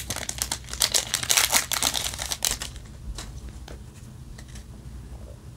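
Foil trading-card booster-pack wrapper crinkling as it is opened and the cards are pulled out. About two and a half seconds in the crinkling stops, leaving a few faint taps as the card stack is handled.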